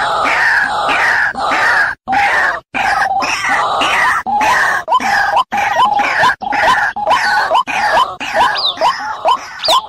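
White-breasted waterhen calling loudly: harsh, grating croaks overlapping in a dense chorus, then from about three seconds in a quick run of short rising notes, a few each second.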